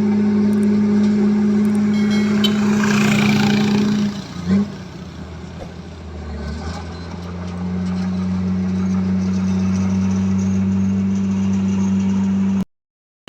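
Heavy diesel engine of an earthmoving machine running steadily. About four seconds in it drops sharply, then builds back up to a steady note. The sound cuts off abruptly near the end.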